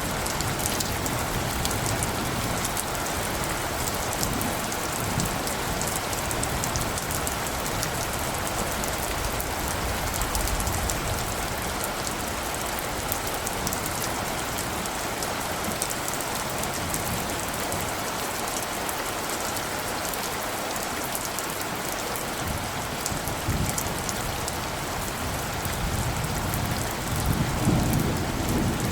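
Steady storm ambience: an even hiss with fine pattering, and low gusts of wind swelling up a few times, most strongly near the end.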